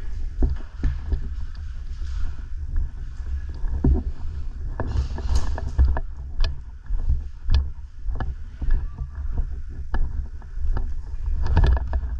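Low rumble of wind and movement against a body-worn microphone, with scattered sharp clicks and knocks at irregular intervals.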